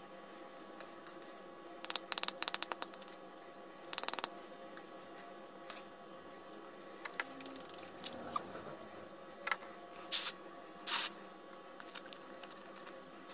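Knife tip tapping and scraping at a raw eggshell to pierce a small hole. A run of quick light ticks comes about two seconds in, then scattered short scratches and clicks.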